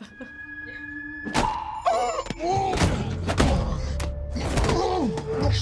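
Action-film soundtrack: a held electronic tone, then from about a second and a half in a series of heavy thuds and impacts over deep bass music.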